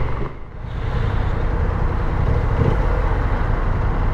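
BMW C650GT maxi-scooter's parallel-twin engine running while ridden, with wind and road noise: a steady low rumble that dips briefly about half a second in.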